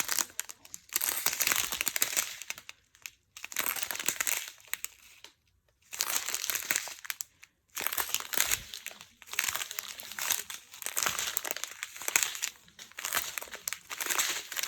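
Small plastic bags of diamond painting drills crinkling as they are handled and sorted, in repeated bursts with short pauses between them.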